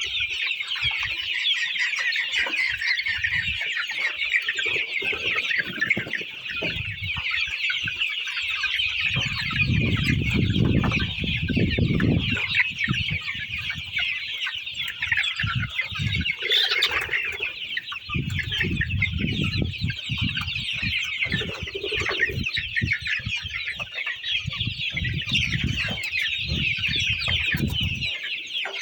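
A flock of chickens clucking and calling continuously, with bursts of low rumbling noise at times, heaviest about nine to twelve seconds in.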